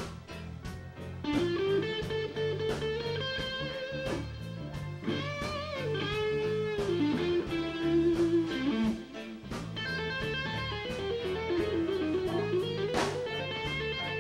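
Live electric blues band in an instrumental break: an electric guitar plays a lead line of sustained, bent notes over a bass line and a steady drum beat.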